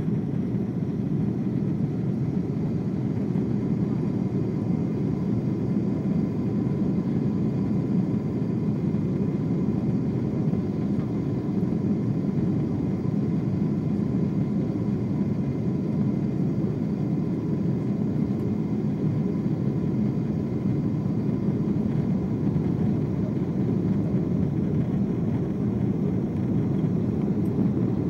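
Steady cabin roar of a Boeing 747-8 heard from a window seat: its four GEnx engines and the airflow over the wing, with the flaps extended for approach. A faint steady whine runs over the roar.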